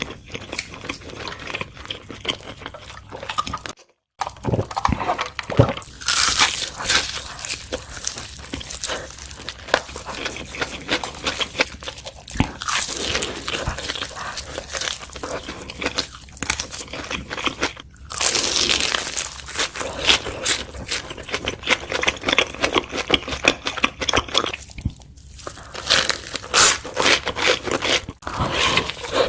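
Close-miked eating sounds: crunchy bites into a fried chicken burger and chewing. The sound drops out briefly about four seconds in and again near eighteen seconds, where clips are cut together.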